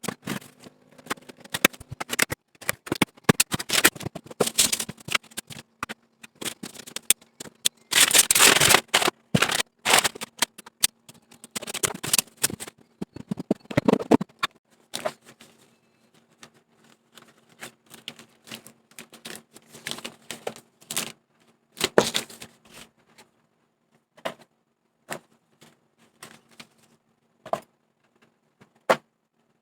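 Irregular clicks, taps and rustles of a boxed mechanical keyboard and its packaging being handled, busiest in the first half, with a longer rustle about eight seconds in, then thinning to sparse single clicks.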